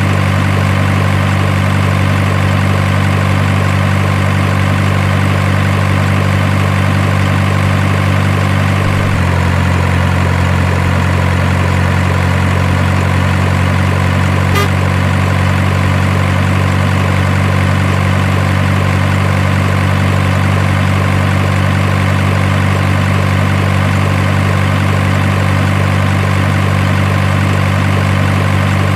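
Heavy truck engine idling steadily at an even level, its low note shifting slightly about nine seconds in. A faint click about halfway through.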